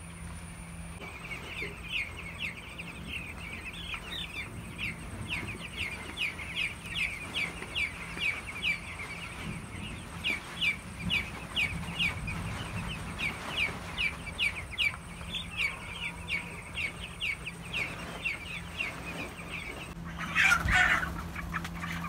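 A flock of broiler chicks peeping: a dense, continuous stream of short high chirps, over a low steady hum. Near the end, louder calls break in as older broilers are reached.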